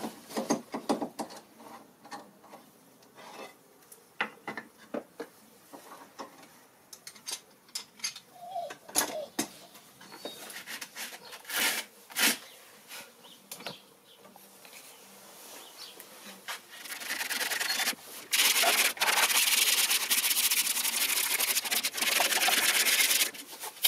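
Pallet wood being hand-sanded with a sanding sponge: scratchy scrubbing strokes, loudest and most continuous over the last six seconds or so. Scattered light knocks and clicks of handling come before the sanding.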